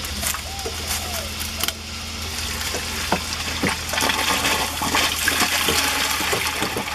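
Mucky filter water pumped out of a corrugated drain hose into a plastic bucket, sputtering and splashing as it starts to flow. It gets louder from about three seconds in as the flow builds and the bucket begins to fill with solids-laden water.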